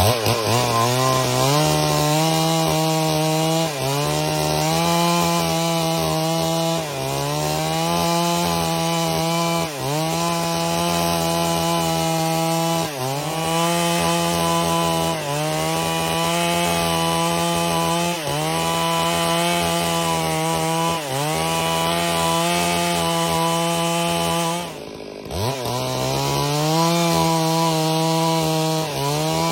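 Two-stroke chainsaw running at high revs while ripping lengthwise through a log to cut a board. Its pitch dips briefly about every three seconds. About 25 seconds in the engine drops off, then revs back up.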